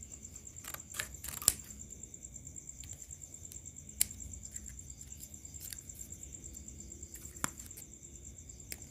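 A few sharp, isolated clicks and taps from small parts being handled while a mica shim is fitted into a speaker's voice-coil gap, over a steady high-pitched pulsing trill like a cricket's.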